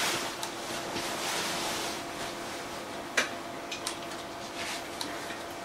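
Room tone with a steady hiss and a faint steady hum, broken by a few light clicks or knocks, the sharpest about three seconds in.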